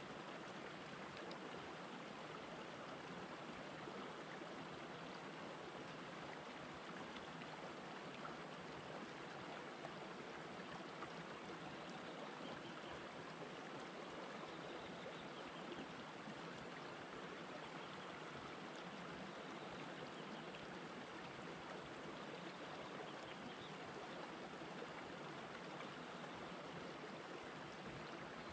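Shallow rocky stream flowing over and between boulders: a steady, soft, even water sound with no distinct events.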